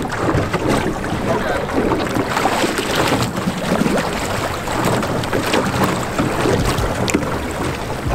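Choppy sea waves splashing against the hull of a small boat, with wind rushing over the microphone.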